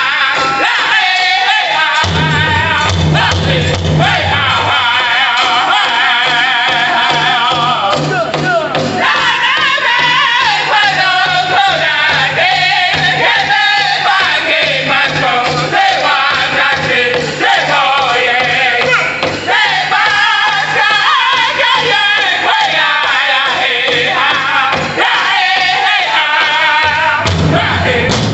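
Powwow drum group singing in unison in high, wavering voices over a steady, even beat on a large shared hide drum struck together with sticks.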